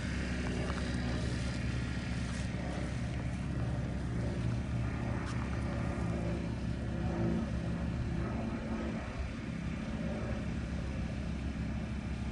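Steady low outdoor rumble with a faint, wavering engine-like hum under it.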